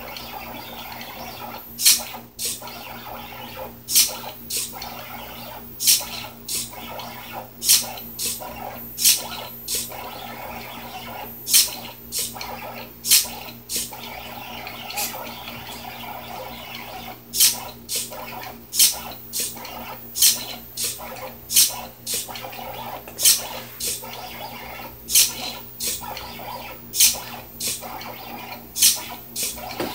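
Pen plotter running: its stepper motors hum steadily while the pen carriage travels, with a sharp click every second or two, sometimes two close together, as the SG90 micro servo lifts and drops the pen between strokes.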